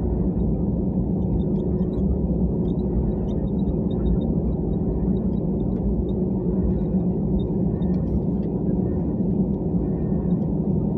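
Jet airliner taxiing, a steady low rumble heard from inside the passenger cabin.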